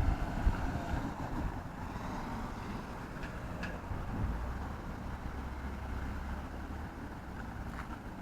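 Low rumble of passing vehicles with wind buffeting the microphone. The rumble is heaviest at the start, fades within the first second, and a steadier low hum comes and goes in the middle.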